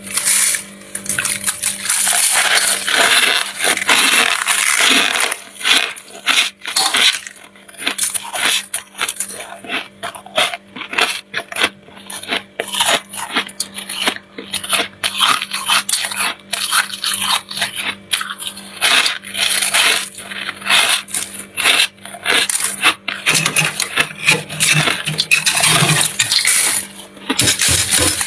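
Fingers scraping and crumbling thick freezer frost: rapid, irregular crunchy scrapes and crackles, stroke after stroke.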